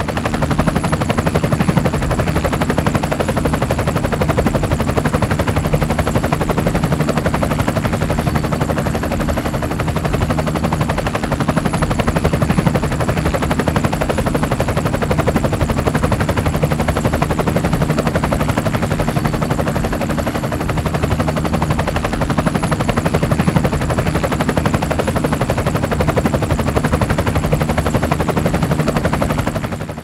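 Multirotor drone's propellers whirring steadily and loudly, a rapid flutter over a steady hum.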